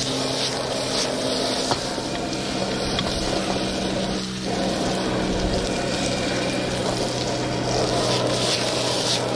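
Outdoor propane wok burner running steadily under a wok, with a low hum throughout, while diced zucchini sizzles in the pan and a wooden spatula stirs and scrapes it now and then.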